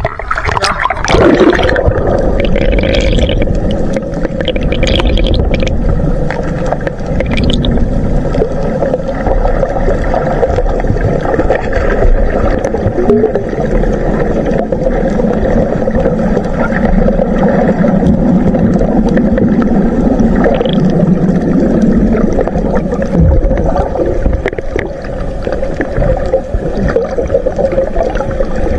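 Muffled underwater sound picked up by a submerged action camera, with water gurgling and a steady hum throughout. Splashing comes in the first second or so as the camera goes under.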